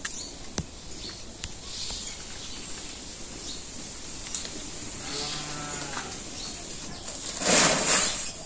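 A cow moos once, about five seconds in, a single low call lasting about a second. Near the end comes a short, louder rush of noise.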